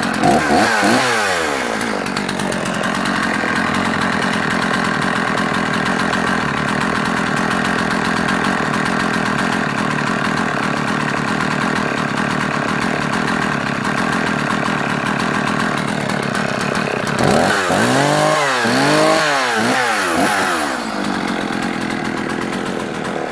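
Husqvarna 50 two-stroke chainsaw running. It is revved in a few quick throttle blips, then held at a steady speed for about fifteen seconds, then blipped up and down several times again near the end. It runs cleanly without missing a beat.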